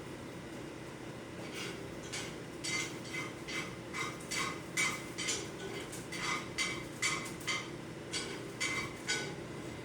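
A kitchen utensil repeatedly clinking and scraping against a dish, about two strokes a second, over a steady low hum.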